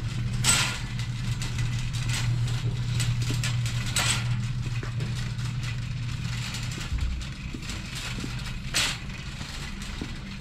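Steady low hum of a store's building machinery, such as ventilation, shifting slightly about two-thirds of the way through. A few short knocks and rattles, the loudest about half a second in and another near the end, come from a shopping cart being pushed.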